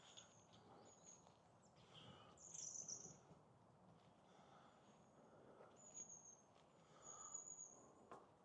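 Faint woodland ambience: short, quiet, high-pitched chirps recurring every second or so, a little stronger about a third of the way in and again near the end, over a soft low rustle.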